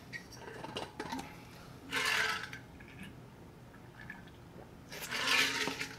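A man drinking water from a large insulated bottle: small clicks and liquid gulps, with two loud breaths, one about two seconds in and another near the end.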